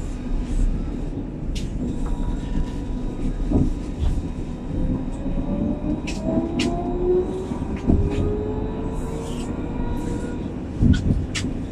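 Alstom Citadis 302 tram running on its rails: a steady rumble of wheels on track with scattered sharp clicks. About halfway through, the traction drive's whine rises in pitch.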